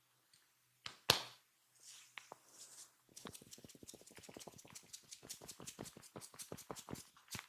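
Hands tapping rapidly and rhythmically on the body in percussive massage strokes, several strikes a second, starting about three seconds in after a few soft rubbing swishes. A single sharp click about a second in is the loudest sound.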